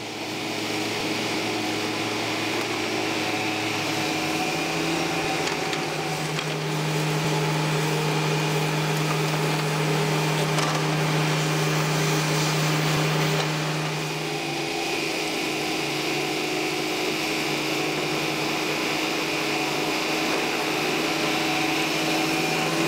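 Tracked hydraulic excavators' diesel engines running steadily under digging load, with a high whine above the engine hum. The engine pitch rises about four seconds in and again a couple of seconds later, then drops back about fourteen seconds in.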